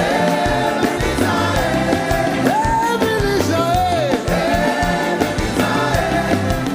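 Live gospel worship music: singing over a full band with a steady beat of drums and bass.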